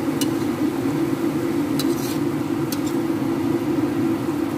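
A spatula stirring bell pepper strips and onion in a wok, with a few short clinks against the pan, over a steady low drone.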